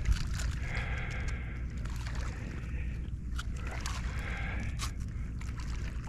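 Small clicks and knocks of handling in a kayak, over a steady low rumble, as a deeply set hook is worked out of a fish's mouth.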